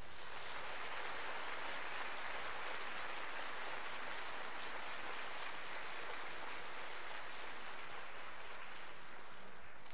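Theatre audience applauding, a dense, even clapping.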